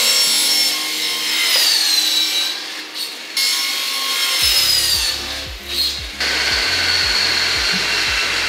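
Hitachi miter saw cutting angles on a white PVC brace rail, its motor whining and winding down twice. Background music with a steady beat comes in about halfway.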